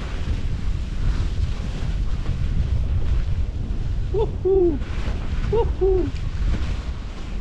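Strong wind buffeting the microphone throughout. Twice, about four and five and a half seconds in, a short two-note hooting call sounds over it, a quick high note then a lower falling one.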